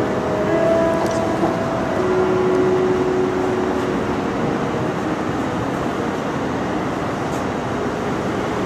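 Steady rushing noise of an indoor ice rink arena, with a few long held notes of a figure skater's program music from the arena speakers in the first few seconds, faint under the noise.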